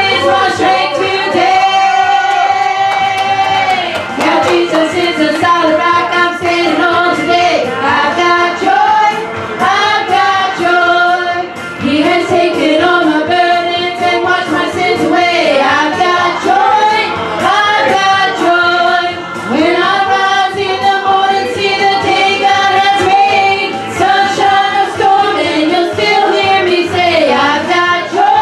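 Congregational worship singing with a female lead voice and instrumental accompaniment, a gospel song.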